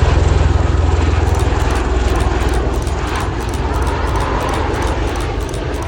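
Aircraft flying past, a loud steady roar with deep rumble that gradually eases off.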